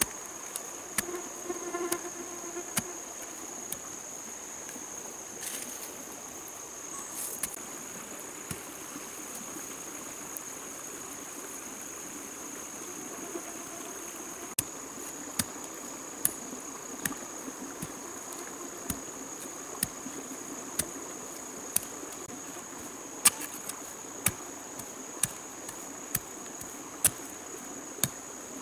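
Insects droning on one steady high note. From about halfway through, sharp knocks come roughly once a second as a bamboo pole is jabbed into the earth to dig a hole.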